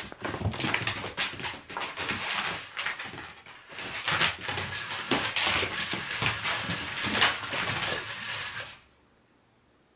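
A dog barking and whining in quick, irregular bursts at a toy robot dinosaur; the sound cuts off suddenly about nine seconds in.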